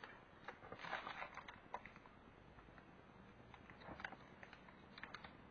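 Faint scattered clicks and crinkles of hands handling a thin plastic cover and tape on an LED backlight strip. The sounds are busiest about a second in.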